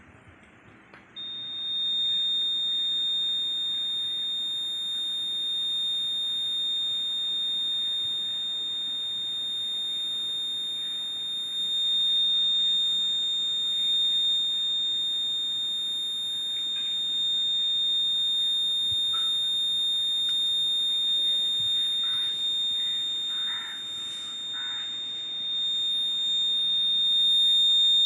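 Rain detector alarm's electronic buzzer sounding one continuous, steady, high-pitched tone that switches on about a second in: the alarm signalling that water has reached its sensor.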